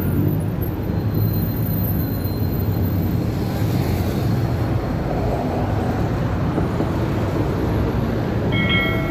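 Steady drone of city traffic on a wet road: buses, cars and motorbikes running past, with tyre noise on the wet asphalt.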